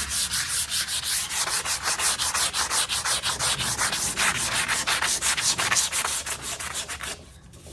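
Sandpaper rubbed by hand in quick back-and-forth scratchy strokes, about five a second, lightly sanding cured CA glue smooth on a laminate cabinet drawer. The strokes stop about seven seconds in.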